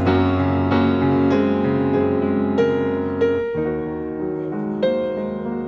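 Background music: a gentle piano piece playing notes at a steady pace, its low bass notes dropping away about three and a half seconds in.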